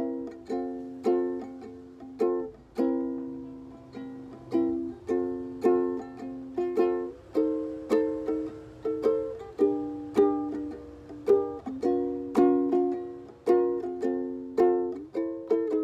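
Background music: plucked-string chords in a steady, bouncy rhythm, each note struck sharply and fading quickly.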